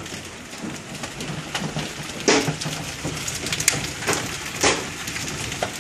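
Hail and heavy rain falling, a steady hiss broken by many sharp ticks and knocks of hailstones striking hard surfaces, with one louder knock about two seconds in.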